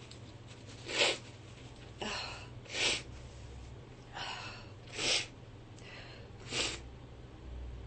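A woman in a sneezing fit lets out four short, sharp bursts of breath through her nose, about one and a half seconds apart. Two of them come just after a fainter catch of breath.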